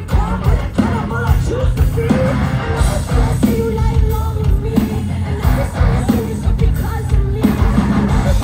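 Live heavy metal band playing loud over a concert PA, heard from the crowd: drums hitting on a steady beat under distorted guitars and bass, with a voice singing over the top.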